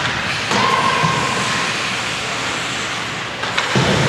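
Indoor ice hockey game ambience: a steady, echoing wash of skates on ice and rink noise, with a dull thud near the end.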